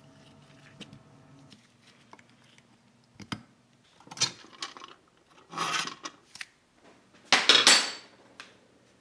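Metal parts and tools being handled on a workbench: a few light clicks, then three short bouts of clinking and scraping, the last one the loudest, near the end.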